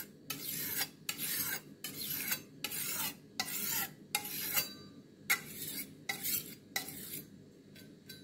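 Steel kitchen knife blade stroked back and forth across a whetstone: about ten scraping strokes, a little under a second apart, with a short pause about two-thirds of the way through.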